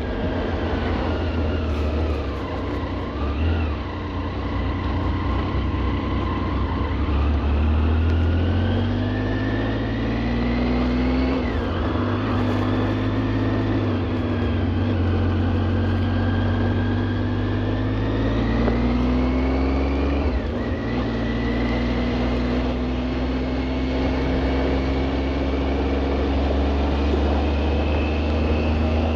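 A vehicle running steadily, its low hum joined by a higher whine that slowly rises and falls in pitch.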